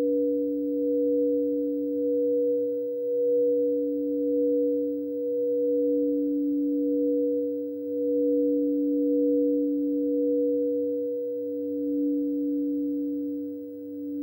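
Two frosted quartz crystal singing bowls are rimmed with mallets, holding a low tone and a higher tone together. Their sound swells and fades in a slow, wavering pulse.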